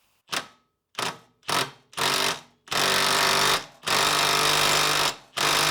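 Impact wrench run in repeated bursts, three short blips then four longer runs of about a second each, drawing the driveshaft through the rear hub.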